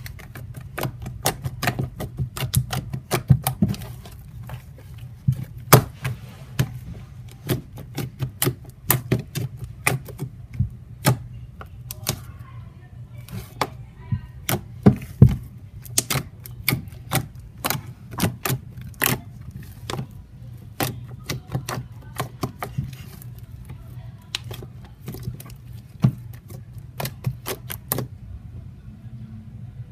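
Fluffy slime being kneaded and poked by hand, giving irregular sharp pops and crackles several times a second as trapped air bursts.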